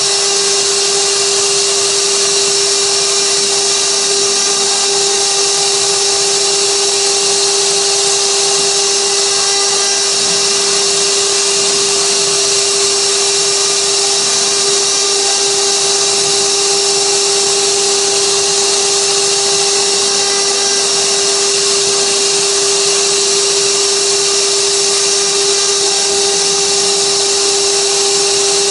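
Spindle of a 6060 desktop CNC router running at a steady high speed while its bit carves a 3D relief in wood: a constant whine over a hiss.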